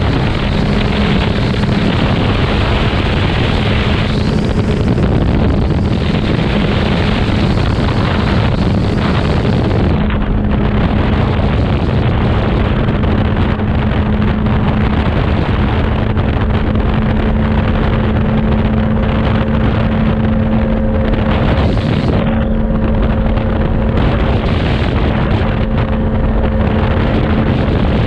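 Engine and propeller of an open-cockpit light aircraft running at high power, with a steady hum under heavy wind noise on the microphone, through the takeoff roll and lift-off.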